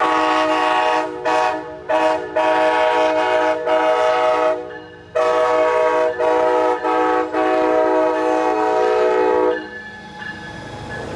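Amtrak Pacific Surfiner locomotive's multi-chime air horn sounding a horn show: a long blast, two short toots, a long blast, then after a brief pause a longer drawn-out blast broken by quick dips. It stops about nine and a half seconds in, leaving a faint low rumble.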